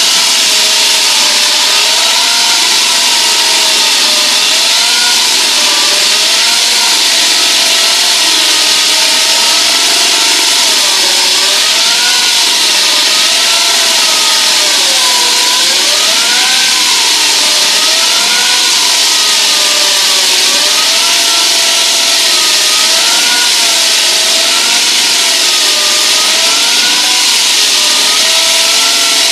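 Hydraulic diamond wall saw cutting reinforced concrete: a loud, steady grinding hiss of the blade in the cut, with a whine that slowly wavers up and down in pitch.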